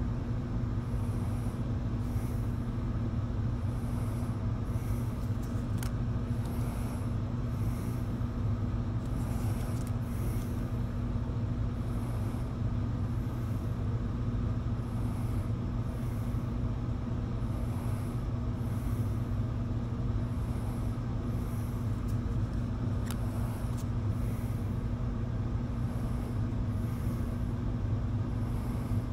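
Steady low droning hum, unbroken throughout, with faint soft swishes about once a second as trading cards are slid one by one off the top of a stack.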